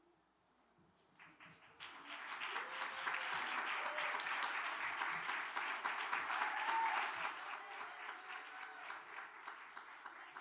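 Audience applauding: clapping starts about a second in, swells, then fades toward the end, with a few faint voices over it.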